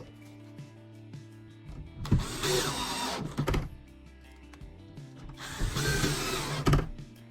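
A power drill running in two bursts of about a second and a half each, with a couple of sharp clicks at the end of each, over background music.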